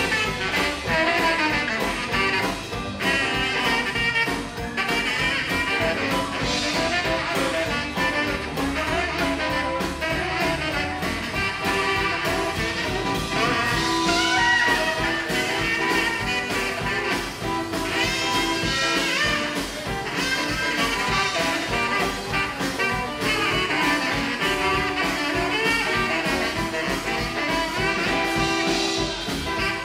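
Live rockabilly band playing an instrumental break: a saxophone solo over upright bass, acoustic guitar and drums.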